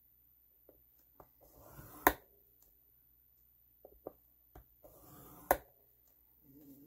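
Plastic bone folder drawn along a groove of a scoring board to score cardstock: a short scrape, twice, each ending in a sharp click, with a few light taps between.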